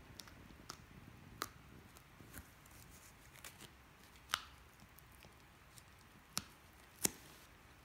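Black Labrador puppy gnawing a dried cow ear: scattered sharp crunches and clicks of teeth on the chew, the loudest a little past halfway and near the end.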